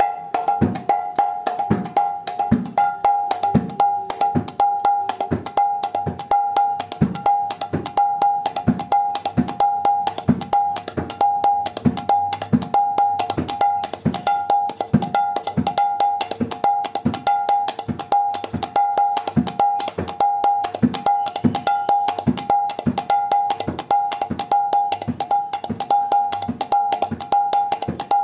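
Rhythmic percussion: a bell-like ringing stroke about twice a second, with duller knocks between.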